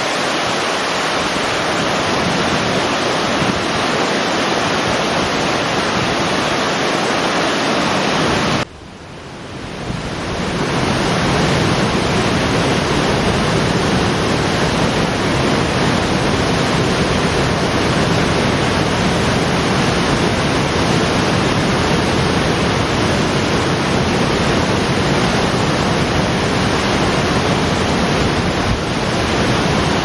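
Water cascading over concrete blocks in a river, a loud steady rush. It drops away suddenly about nine seconds in and swells back over the next two seconds.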